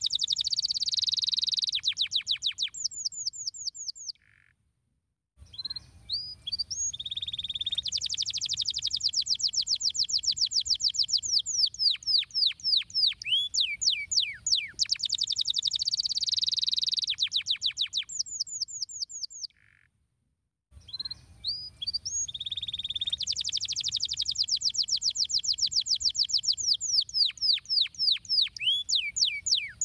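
Domestic canary singing long rolling trills of rapid repeated notes mixed with falling slurred whistles. The song breaks off twice for about a second of silence.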